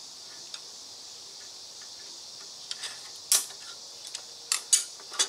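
Several sharp metal clicks and clinks as steel pliers and U-joint bearing caps are handled at a vise. They come in the second half, the loudest a little over three seconds in.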